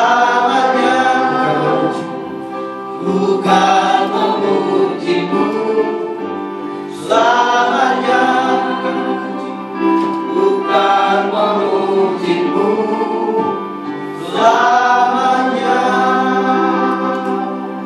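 A group of voices singing a Christian hymn over a steady, held accompaniment. New sung phrases swell in every three to four seconds.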